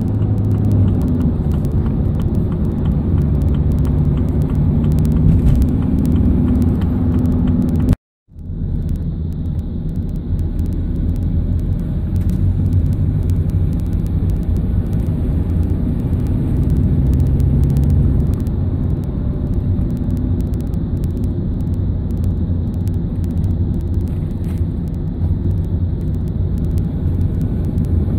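Van engine and road noise heard from inside the cab while driving, a steady low rumble whose engine note shifts up and down now and then. The sound cuts out completely for a moment about eight seconds in, then resumes.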